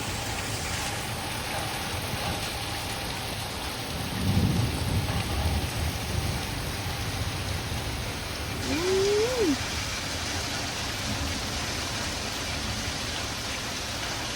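Steady rain falling, with a low rumble of thunder about four seconds in. Just past the middle, a short call rises and falls in pitch over the rain.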